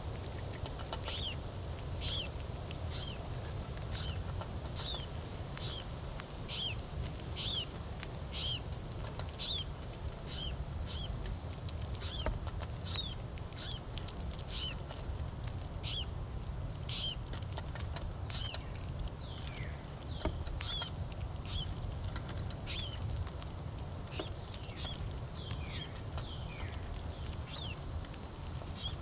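A short, high, falling call note repeated steadily, about three every two seconds, some notes in the second half sliding lower, over a steady low rumble. A few faint clicks.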